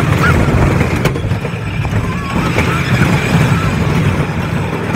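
Wooden roller coaster train rolling along its track: a loud, steady low rumble.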